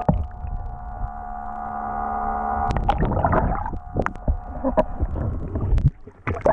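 Underwater sound around a GoPro in its housing: a steady drone of several held tones over a low rumble, broken by knocks and rushes of water. Near the end it briefly drops away, then splashes as the camera breaks the surface.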